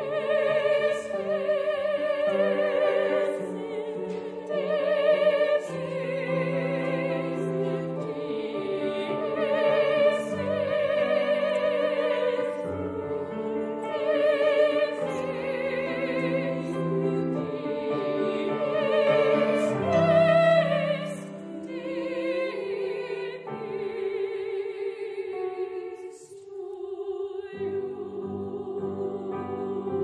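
A small choir of women's voices singing a slow, sustained piece in harmony, the notes held long with vibrato. After about twenty-six seconds the sound thins to a few quieter held notes.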